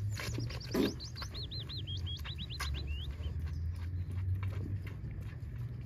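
A small songbird singing one quick run of looping high notes that falls gradually in pitch and ends after about three seconds, over a low steady rumble. A single sharp knock sounds just under a second in.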